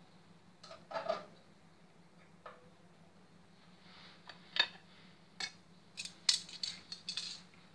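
Metal kitchen tongs clinking and tapping against a stainless steel pot and plate as boiled sweet potatoes are lifted out: scattered light clicks, busiest near the end.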